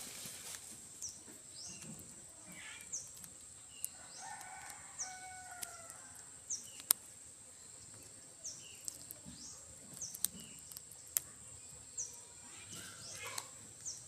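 Yard ambience: a rooster crows once about four to six seconds in, over a steady high insect drone and short high chirps repeating roughly once a second. Scattered sharp clicks, the loudest about seven seconds in.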